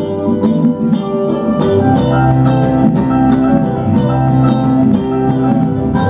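Live band music without singing: electric guitar picking quick notes over sustained keyboard chords and a low bass line.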